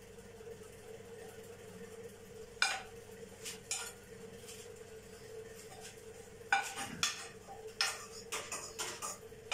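Knocks and scrapes on a non-stick pot as cooked basmati rice is emptied out of it onto a serving plate: a few knocks about three seconds in, then a quick run of them near the end, over a steady faint hum.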